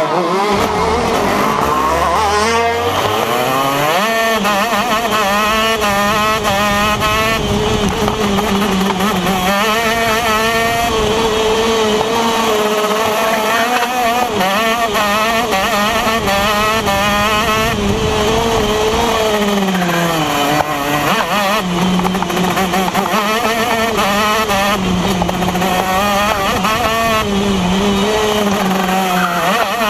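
Onboard sound of a TM KZ10 125cc two-stroke shifter kart engine racing hard. Its pitch climbs and falls as it accelerates through the gears and lifts for corners, with a low pull up from slow revs about two seconds in and another dip for a corner about twenty seconds in.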